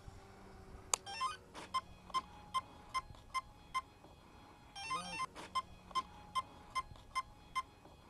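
Castle Creations Talon 90 electronic speed controller sounding its arming tones through the brushless motor as the flight battery is connected: a click about a second in, a quick run of stepped tones, then a steady beep about two and a half times a second. A second short run of tones comes about five seconds in, and the beeping carries on after it.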